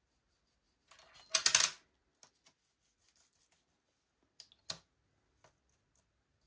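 Small hard craft items handled on a work table: a short burst of clattering clicks about a second in, then two single sharp clicks a few seconds later.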